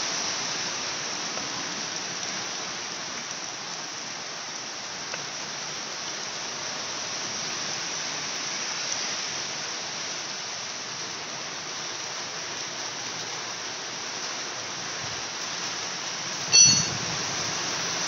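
A steady hiss throughout. Near the end comes one sharp metallic clink with a brief ring, from a wrench against the aluminium alternator housing of a Honda EP1000 generator while its long through-nuts are being undone.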